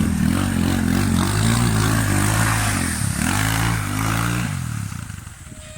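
250 cc single-cylinder four-stroke enduro motorcycle engine revving hard as the bike rides off, its pitch climbing and dropping with gear changes, then fading away about five seconds in.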